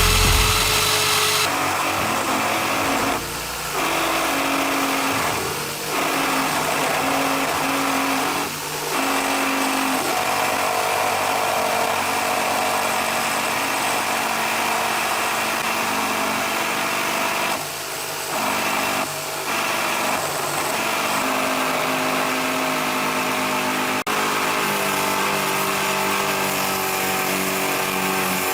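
Electric drill motor driving a homemade mini lathe, running steadily with a whine, its sound dipping briefly a few times.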